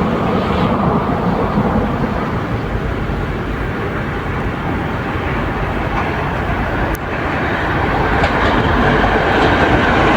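Passenger train hauled by two TEP70 diesel locomotives approaching, its rumble growing louder through the second half, with a single click about seven seconds in.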